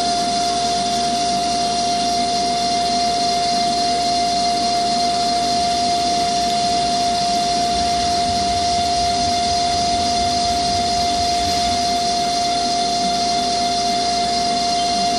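2013 Haas TL3 CNC lathe running with its spindle and chuck turning: a steady whine over an even machine hum.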